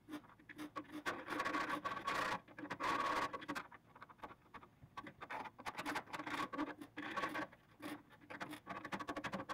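A small hand tool scraping over a fresh weld seam on the car's steel body panel, in bursts of quick, irregular strokes with short pauses between them.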